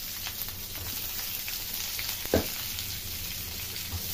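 Chopped onions sizzling in hot oil with fennel seeds in a frying pan, with one sharp knock of the wooden spoon against the pan about two seconds in as stirring begins.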